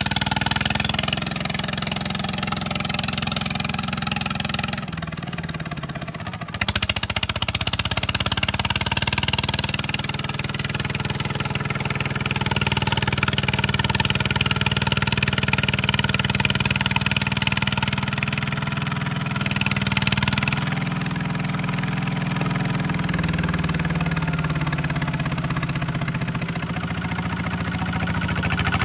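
Single-cylinder diesel engine of a Kubota two-wheel walking tractor running steadily, its pitch shifting a few times as the throttle or load changes. It dips quieter about five seconds in, then comes back louder.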